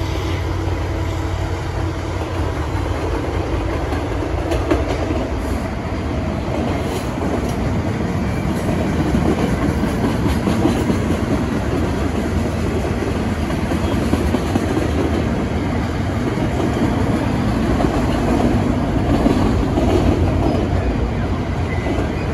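Freight train cars rolling past on the rails, a steady rumble of wheels on track.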